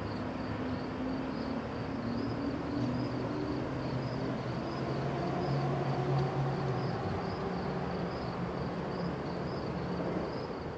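Steady low rumble and hum of a freight train's last cars rolling away along the track. Through it an insect chirps in a steady pulse about twice a second.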